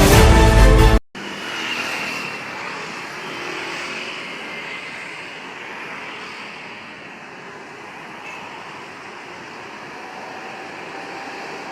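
Background music cuts off abruptly about a second in, followed by road traffic noise: a passing vehicle's rush that is loudest just after the cut and slowly fades.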